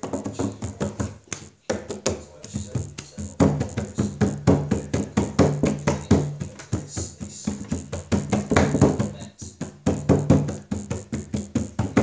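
Dance music with a steady, fast beat over a held bass line.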